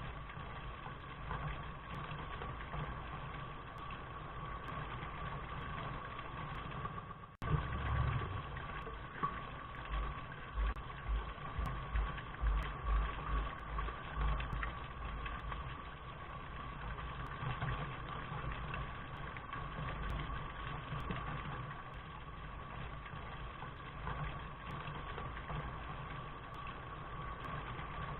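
Steady rain noise with a low rumble underneath. It drops out for an instant about seven seconds in, and the rumble then swells in pulses for several seconds.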